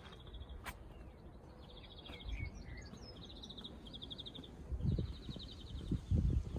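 A small songbird singing a series of short, rapid trills, over a low outdoor rumble, with a few low thumps near the end.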